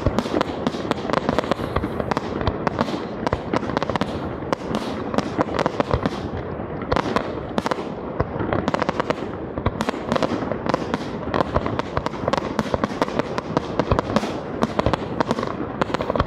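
Aerial firework shells from a display bursting one after another, a dense, unbroken run of bangs and pops several per second.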